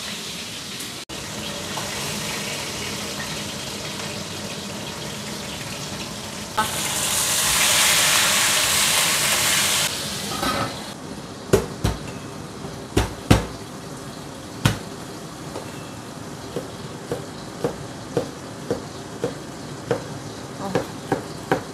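Fish frying in hot oil in a wok, a steady sizzle that swells into a loud hiss for a few seconds and then stops. After a few sharp knocks, a cleaver chops garlic on a wooden cutting board, about two chops a second.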